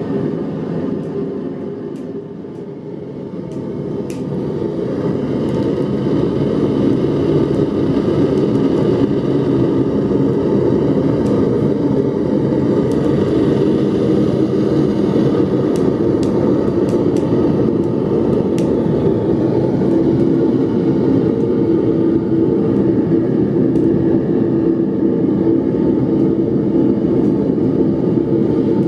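Burner of a homemade blast furnace running on a low setting: a steady roar of flame in the furnace. It dips briefly a couple of seconds in, then comes back to full strength.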